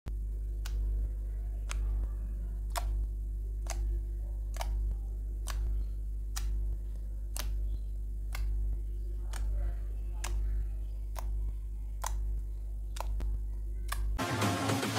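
Clock-like ticking, one sharp tick about every second, over a steady low hum. About fourteen seconds in, music comes in.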